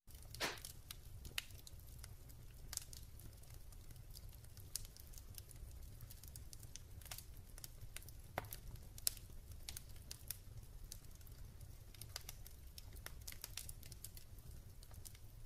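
Faint crackling fire: irregular sharp pops and snaps, a few loud ones near the start and around eight to nine seconds in, over a low steady rumble.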